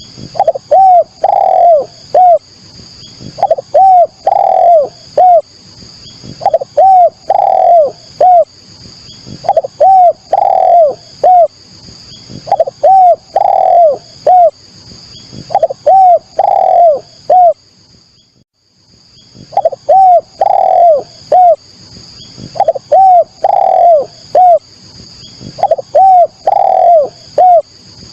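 Spotted dove (tekukur/derkuku) cooing over and over: a short phrase of about three coos that repeats roughly every one and a half to two seconds, with a pause of about two seconds about two-thirds of the way in. A high-pitched chirping runs behind the coos.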